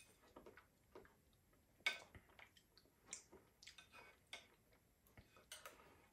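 Faint, scattered clicks of someone eating: mouth and lip sounds while tasting sauce off a metal spoon, and the spoon touching the plate.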